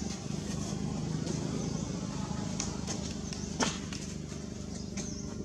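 A steady low mechanical hum, like a motor running at a distance, with a few sharp clicks, one louder about halfway through.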